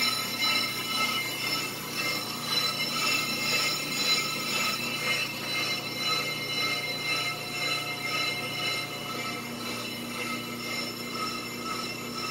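Brake lathe turning a cast-iron brake rotor while its twin cutting bits cut both faces: a steady high squealing ring made of several tones over a low motor hum, wavering slightly in level.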